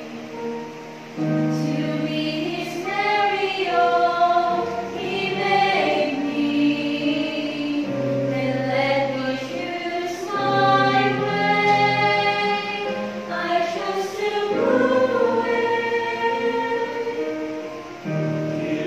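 Mixed choir of men's and women's voices singing a gospel hymn together in long held notes, phrase after phrase.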